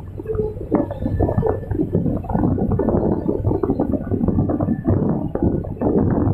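Hydraulic excavator working, heard from inside the cab: a steady low engine drone with frequent rattles and knocks as the loaded bucket swings and dumps soil. It grows louder about a second in.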